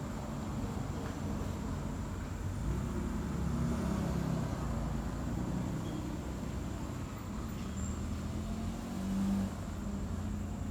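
Cat purring in her sleep: a low, steady rumble.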